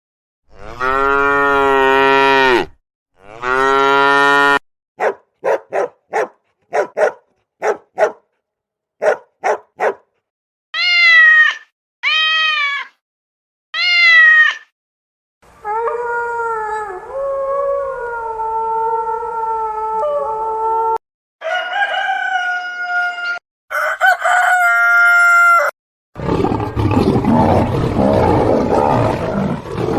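A string of different animal calls, one after another with short silences between: two long, low moos, a run of short sharp calls, three rising-and-falling calls, a long wavering howl, and a rough lion's roar near the end.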